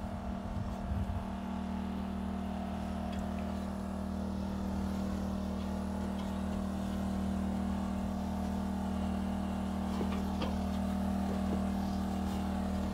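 An engine running steadily at an even speed, a constant low hum. A few faint light knocks sound over it.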